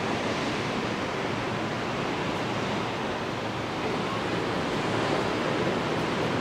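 Steady, even rush of wind on the microphone mixed with the wash of Gulf surf breaking on the beach far below.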